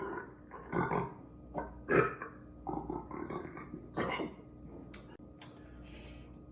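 A man burping: a string of short burps over the first four seconds or so.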